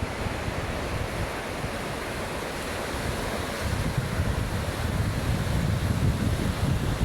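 Lake Ontario waves washing onto the beach in a steady rush, with wind buffeting the microphone as a gusty low rumble that grows stronger a little past halfway.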